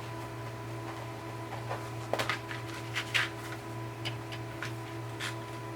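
Soft rustles and a few light clicks of hands threading flat elastic through the hole in a notebook cover, over a steady low background hum.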